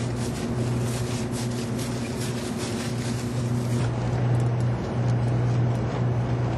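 Steady low machine hum of work-site equipment, briefly dipping a few times, over a constant background rush.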